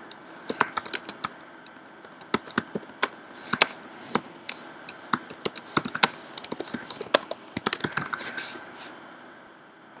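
Typing on a computer keyboard: a run of quick, irregular keystrokes that stops about a second before the end.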